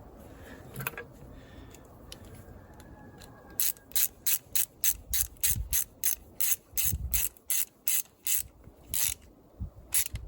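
A hand ratchet tool clicking through a run of about twenty quick strokes, some three a second, with a couple of dull low thumps among them.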